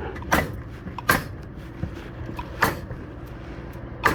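Four sharp, unevenly spaced knocks from work on wall framing, over a steady low hum.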